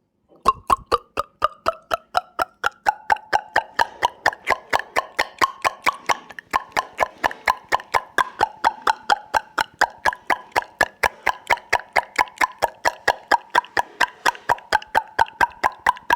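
Beatboxed water-drop sound effect: quick mouth pops, about four or five a second, each with a pitch that drifts up and down as the mouth shape changes.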